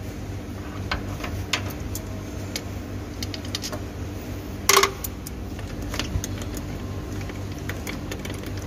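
Scattered light metallic clicks and clinks of tools and small engine parts being handled, with one louder knock a little past halfway, over a steady low hum.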